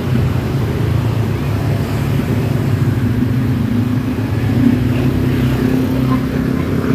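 Steady low hum of nearby motor-vehicle engines, with a higher engine note joining about three seconds in.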